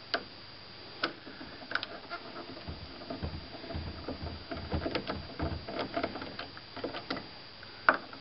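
Screwdriver and hand working on parts inside a TV chassis: scattered sharp clicks of metal and plastic, with a busier stretch of rubbing and knocking in the middle.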